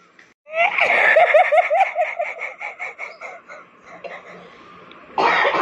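A person laughing: a quick run of short, evenly repeated laughs that tails off after about three seconds. A voice starts again near the end.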